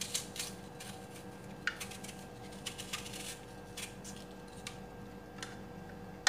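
Small kitchen knife paring the skin off a raw apple: soft, crisp scrapes of the blade through the peel, coming irregularly about a second apart, over a faint steady hum.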